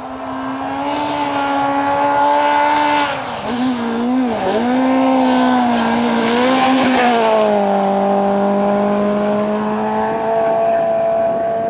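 Citroën C2 R2 rally car's 1.6-litre four-cylinder engine at high revs on a gravel road, getting louder as it comes closer. About three and a half seconds in the engine note wavers and dips twice as the driver lifts and gets back on the throttle through a corner, then it is held high again with a hiss of gravel and dust from the tyres, and its pitch drops a step just before eight seconds.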